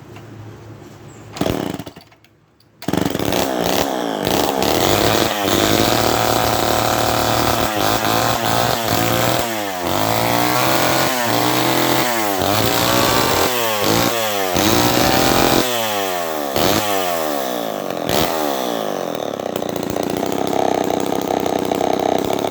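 Homelite XL-901 two-stroke chainsaw with a homemade stack exhaust, very loud. A short burst comes about a second and a half in, and the saw catches and runs from about three seconds. It is then revved up and down over and over, and runs steadier near the end.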